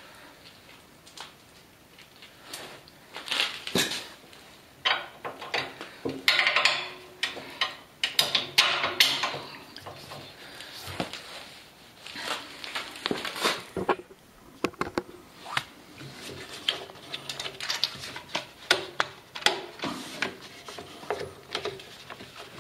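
Irregular metallic clinks, taps and rattles of small hardware being handled as a bolt and nut are fitted to fasten a portable generator's steel handle frame.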